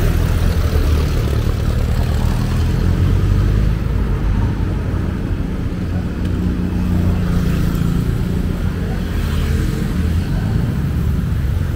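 Street traffic with the steady low rumble of a vehicle engine running close by, as a jeepney passes.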